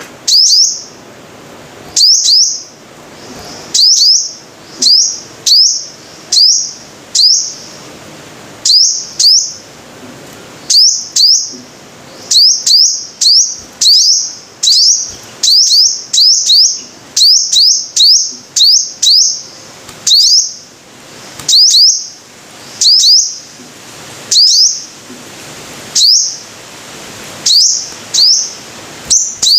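Sunbird calls: short, high-pitched chirps, most of them in quick pairs, repeated about once or twice a second with uneven gaps.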